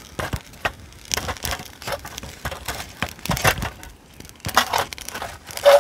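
Sticks pushing and scraping cylindrical charcoal briquettes around inside a small folding metal stove: a string of irregular crunching, grating knocks, the sharpest one near the end.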